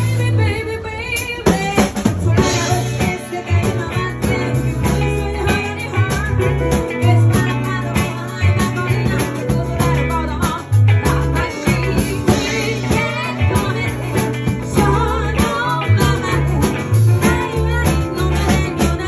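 Live band music: guitar and drums over strong, held bass notes, with a wavering melodic line above.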